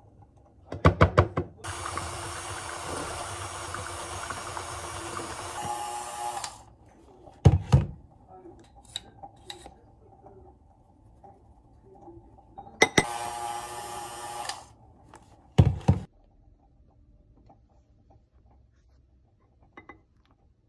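Electric stand mixer running with its wire whisk whipping fresh cream in a glass bowl: a steady whir for about five seconds, then again for about two seconds, with sharp knocks of the bowl and mixer being handled before and between the runs.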